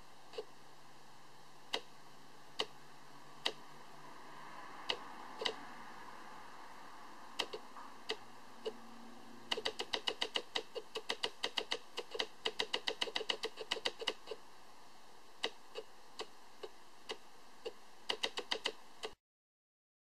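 A series of sharp clicks or taps over a steady faint hiss: scattered at first, then a quick run of about six a second for several seconds midway, then scattered again, before the sound cuts off abruptly near the end.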